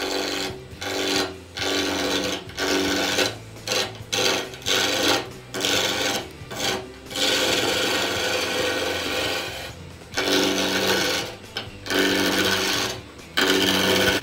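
Wood lathe running with a steady hum while a tool is pressed to the spinning wood in short rasping strokes about a second apart, with one longer unbroken pass of about three seconds in the middle.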